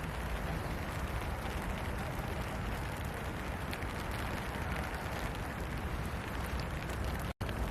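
Steady rain, a dense even hiss with a deep rumble underneath. It cuts out completely for an instant near the end.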